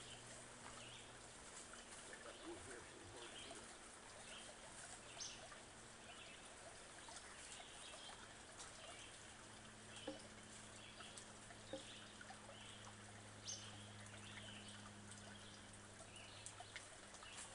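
Quiet woodland ambience: faint, scattered bird chirps with a few light knocks and a faint low hum beneath.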